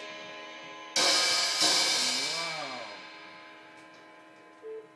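A toddler's stick hits on a drum kit: two sharp hits about a second in, then a cymbal left ringing and slowly fading. A short voice sound rising and falling in pitch comes during the ring.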